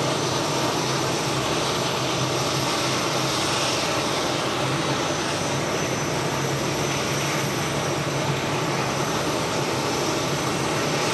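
A multi-engine modified pulling tractor runs steadily during its engine start-up sequence, with a steady low drone and a thin, steady high-pitched whine over it.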